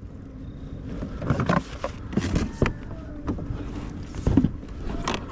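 Irregular knocks, clicks and rustles of hands handling a fish and gear aboard a kayak, over a low steady rumble.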